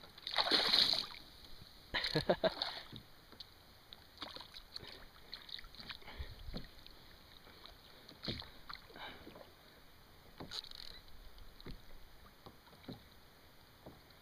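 Water splashing loudly twice within the first three seconds as a small hooked shark thrashes at the surface beside a kayak, followed by fainter, scattered splashes.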